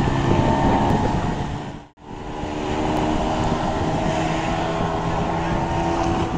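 Small outboard motor on a mini speed boat running steadily at full throttle, heard with the rush of wind and water. The sound cuts out for an instant about two seconds in, then carries on as before.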